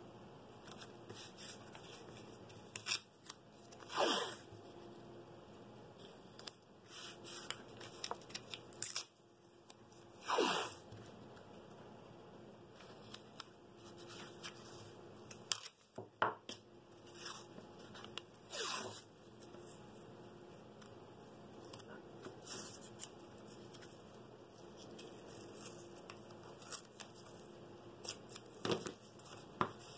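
Blue painter's tape pulled off the roll in about four short rips spaced several seconds apart, each dropping in pitch, with softer rustling and rubbing between as the strips are pressed and smoothed onto a wooden board by hand.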